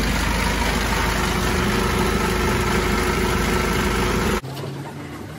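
DAF LF truck's diesel engine idling steadily, heard close up by the newly fitted power steering box. It cuts off abruptly about four seconds in, giving way to a quieter, lower hum.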